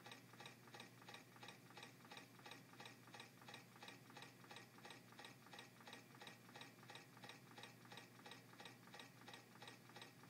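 Small low-temperature-difference MM-5 Stirling engine running on a cup of hot water, its mechanism giving a faint, steady ticking of about five ticks a second.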